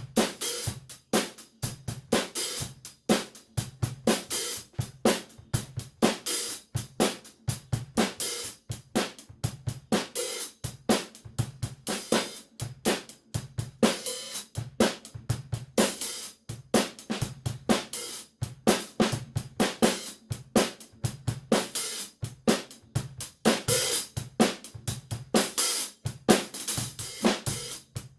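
Drum kit played in a steady groove, with a 14-inch Zildjian K Sweet hi-hat keeping time over snare backbeats and bass drum kicks.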